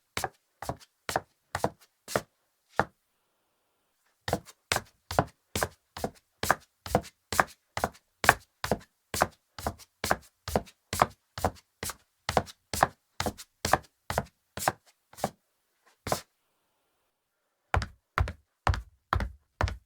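Footsteps of hard leather-soled sandals on a hardwood floor, walking at a moderate pace of about two steps a second. The walking pauses twice, and the last few steps are heavier, with more thud.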